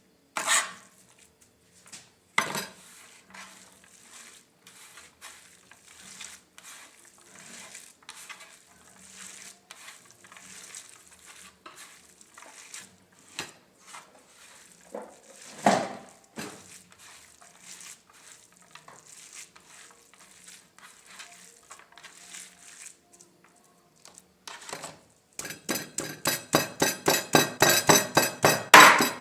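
Kitchen utensils and dishes clinking and knocking now and then, with two louder knocks near the start and one about 16 seconds in. About 25 seconds in, fast, steady chopping begins on a board, about six strikes a second and growing louder: meat being minced by hand in place of a grinder.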